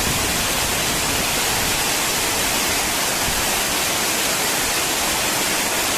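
Heavy rain falling steadily in strong wind, an even, unbroken wash of noise.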